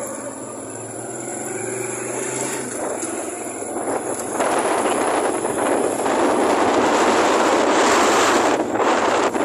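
Steady rushing road noise of a moving motorbike ride, wind on the microphone mixed with engine and tyre noise. It grows much louder about four seconds in.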